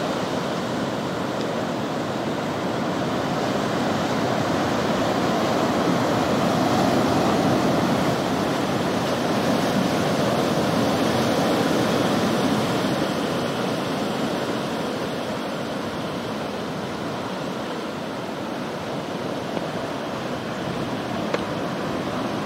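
Steady wash of ocean surf breaking on a beach, swelling gently in the middle and easing off later.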